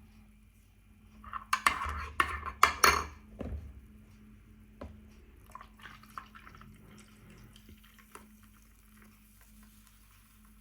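Kitchenware clattering: a quick run of clinks and knocks of dishes, pans and cutlery about a second in, then a few faint clinks.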